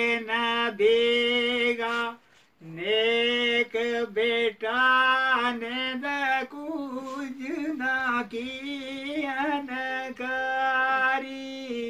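A man singing unaccompanied in a high, held voice: long sustained notes with wavering ornaments, sung in phrases with a short breath break about two seconds in.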